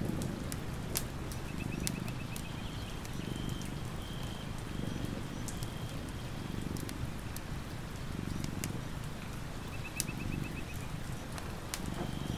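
Sleeping domestic cat purring, a low rumble that swells and fades about once a second with each breath.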